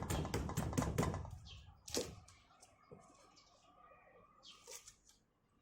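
Kitchen knife striking a cutting board while working garlic leaf stems: a quick run of chops, about five a second, for roughly the first second. A single sharper knock comes about two seconds in, followed by a few fainter taps.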